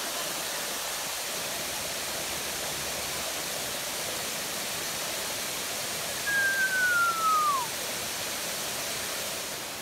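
Small waterfall splashing down over rocks: a steady rushing hiss. About six seconds in, a single clear whistle slides downward in pitch for just over a second.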